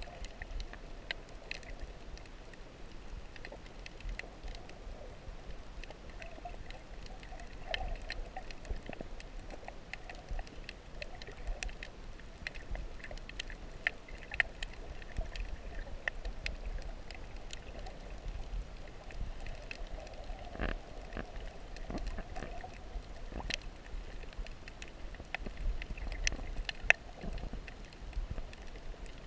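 Underwater sound through a camera's waterproof housing: a steady low rumble with scattered short clicks and crackles.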